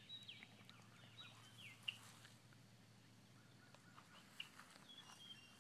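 Faint outdoor birdsong: scattered short chirps and quick downslurred whistles, busiest in the first couple of seconds, with a thin held whistle near the end. A couple of soft clicks are heard, about two seconds in and again later.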